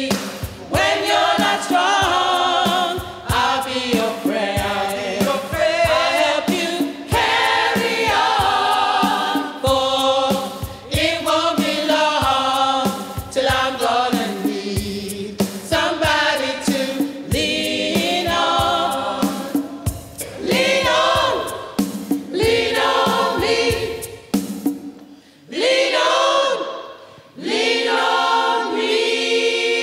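A community choir singing gospel-style in harmony. About 25 seconds in the singing breaks off briefly, then comes back on long held chords.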